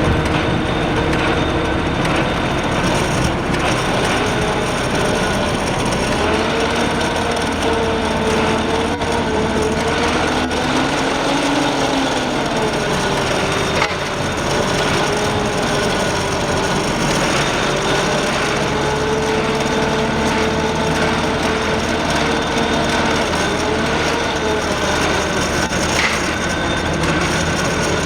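A motor running steadily, its whine slowly rising and falling in pitch, with a few scattered knocks.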